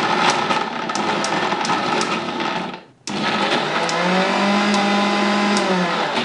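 Electric mixer grinder with a steel jar grinding fried brinjal into a thick chutney paste, no water added. It runs, cuts off about three seconds in, and starts again a moment later, its motor hum rising in pitch during the second run.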